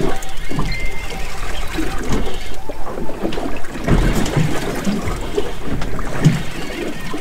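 Waves slapping and sloshing against the hull of a small drifting boat, with wind buffeting the microphone in uneven gusts.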